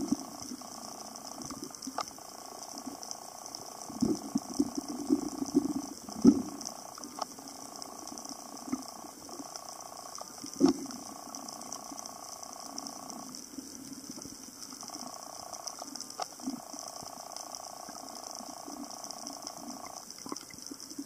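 Muffled underwater ambience: a steady hum, with scattered sharp clicks and knocks throughout and a few louder thumps about four to six seconds in and again near eleven seconds.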